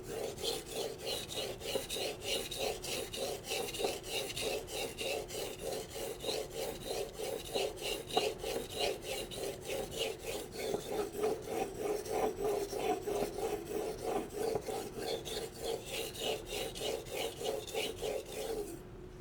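Steel knife blade (Aogami Blue #2 santoku) stroked back and forth across a wet whetstone in steady rhythmic passes, about three strokes a second, stopping just before the end.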